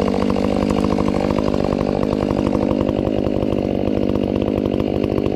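Stock Stihl 500i chainsaw running steadily while cutting through a rotten leaning fir.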